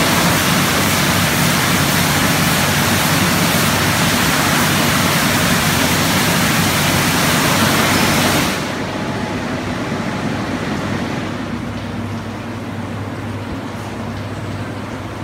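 Automatic rollover car wash gantry spraying water: a loud steady hiss that cuts off sharply about eight and a half seconds in, leaving the machine's steady motor hum.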